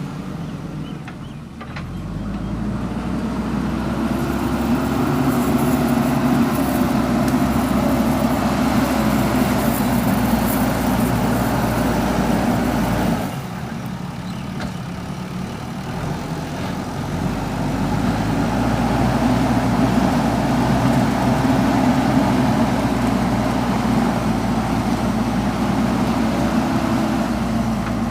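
JCB backhoe loader's diesel engine running under load, revving up. About thirteen seconds in it drops back suddenly toward idle, then revs up again.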